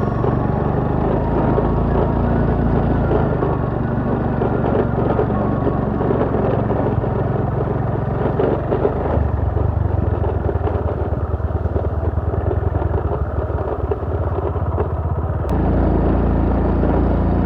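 Motorcycle engine running as the bike is ridden. The engine note changes about nine seconds in and again shortly before the end.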